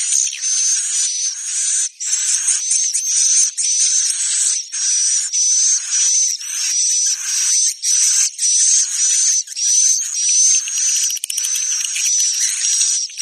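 Swiftlet roosting-lure call ('suara inap'), played to draw swiftlets into a swiftlet house to roost. It is a run of high, buzzy chirps with a wavering whistle on top, repeated one to two times a second with short breaks.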